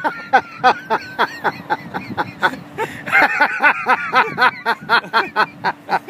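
People laughing hard in a long unbroken run of quick bursts, about four or five a second, with a faint steady hum underneath.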